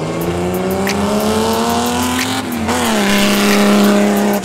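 A car's engine accelerating hard, its pitch rising for about two and a half seconds. It dips briefly at a gear change, then holds steady and falls slightly as the car passes. A hiss of tyres throwing water off the wet track is heaviest near the end.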